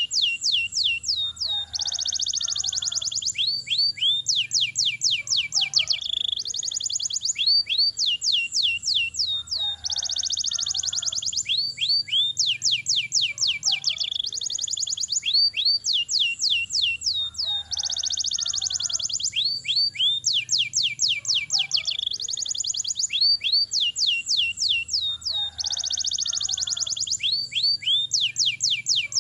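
Domestic canary singing long rolling trills, fast runs of sweeping notes alternating with dense buzzy rolls, high-pitched. The same song phrase repeats about every eight seconds, as a looped recording.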